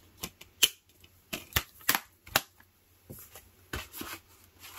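Irregular sharp clicks and clacks of a hard plastic multi-disc DVD case: discs snapped onto their stacked hubs and the case handled and shut.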